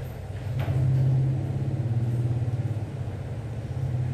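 Low steady mechanical rumble, swelling briefly about a second in.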